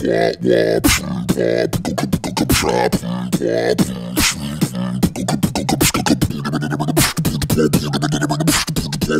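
A man beatboxing with his voice deepened by inhaled sulfur hexafluoride: quick clicks and snare sounds over low hummed bass notes, which hold steady from about halfway.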